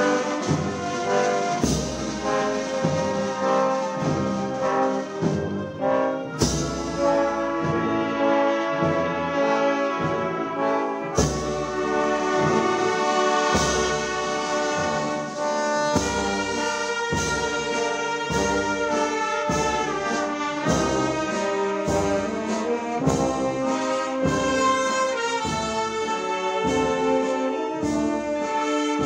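Processional band playing a slow Holy Week march, led by brass, with sustained chords over steady drum beats.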